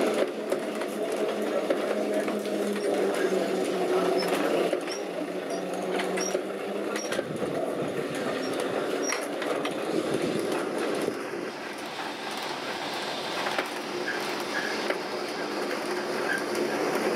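Lisbon tram heard from inside the car as it climbs, with the steady whine of its electric motor and the rattle and clicking of the body and wheels on the rails. The motor's steady tones fade about seven seconds in, leaving the rattling run.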